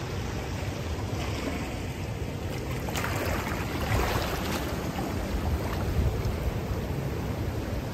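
Shallow ocean surf washing up the sand and swirling around rocks, with a brighter rush of foaming water over a rock about three to four seconds in. Wind buffets the microphone with a low rumble.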